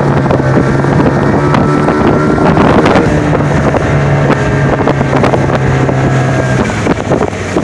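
Inflatable dinghy's outboard motor running steadily at speed across open water, with wind rushing over the microphone. The steady engine note drops away near the end.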